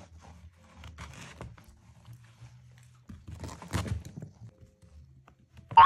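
A young puppy's claws scratching and scrabbling against a wallpapered wall as it climbs at it, in short rough bursts, the busiest about three to four seconds in. A cartoon boing sound effect starts right at the end.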